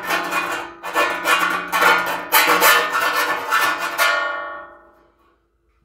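Round file rasping back and forth in a drilled hole in thin steel sheet, deburring it. Each irregular stroke sets the sheet ringing like a bell. The strokes stop about four seconds in and the ringing dies away.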